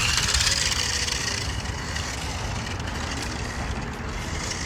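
Toy remote-control car's small electric motor and gears whirring as it drives, loudest in the first second and a half, easing off, then picking up again near the end.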